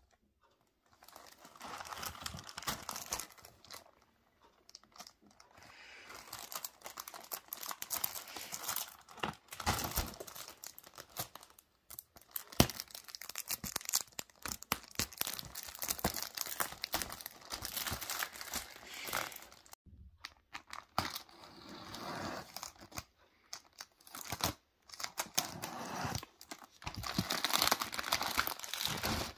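Fingers handling a cardboard chocolate box, rustling and clicking on the card in uneven spurts, then peeling and crinkling the clear plastic wrap off it near the end, with short tearing sounds.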